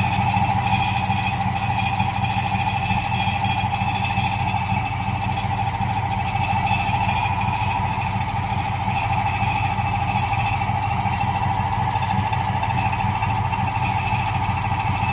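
Ford F-150 5.0 L V8 engine idling with a steady high-pitched squeal running over it, the sound of a failing water pump.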